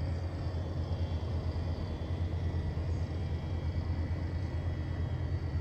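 Wind buffeting the microphone in a snowstorm: a steady, fluttering low rumble.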